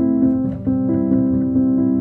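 Instrumental background music: a repeating pattern of sustained notes, changing about four times a second.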